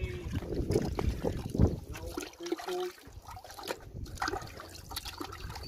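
Hands sloshing and splashing in a plastic bucket of muddy water, grabbing at fish, with irregular small splashes and trickles.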